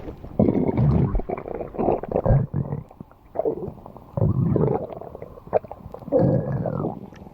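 Stomach growling: gurgling rumbles that come in about five irregular bursts with short pauses between them, some carrying squeaky rising and falling whines.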